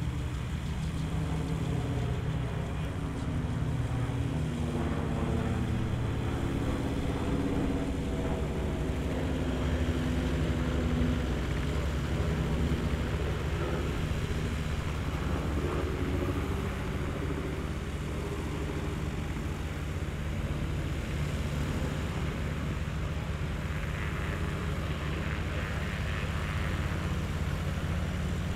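Gyroplane's engine and pusher propeller running on the ground as it taxis, a steady drone whose pitch shifts during the first dozen seconds and then holds steadier.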